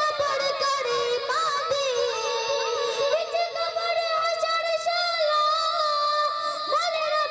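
A boy singing a Punjabi naat into a microphone in a high voice, holding long notes that break into quick wavering ornaments about a second in and again near the end.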